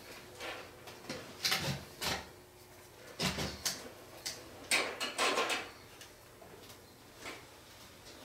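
Irregular handling clatter: knocks, a few low thumps and scraping as equipment and cables are moved around inside an electronics rack.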